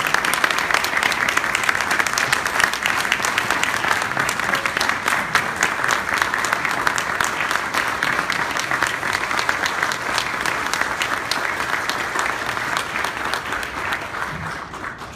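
Audience applauding, with loud individual hand claps close to the microphone; the applause dies away near the end.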